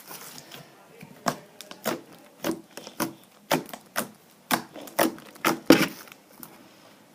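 Homemade fluffy bubblegum slime being squeezed and worked by hand, giving a regular string of sharp pops and clicks, about two a second, that stop shortly before the end.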